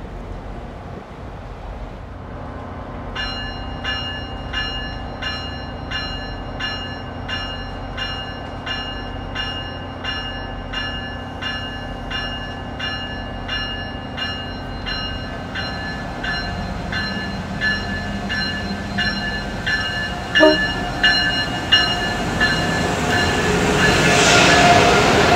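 Bell on an arriving Amtrak Acela Express power car ringing at an even pace, about one and a half strokes a second, then stopping. A few sharp knocks follow, and near the end comes a loud rising rush as the train passes close by.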